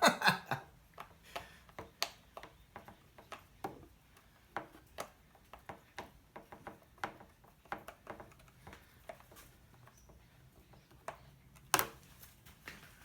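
Irregular small clicks and taps of metal parts and hand tools being handled during a bolt-on install, with one sharper knock near the end.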